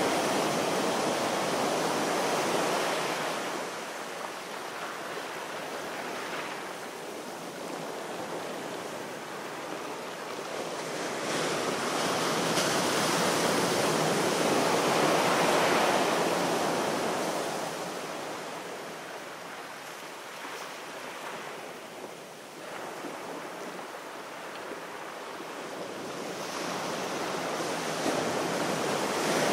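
Sea waves washing onto a shore, a steady rushing that swells and ebbs in slow surges about every twelve to fourteen seconds.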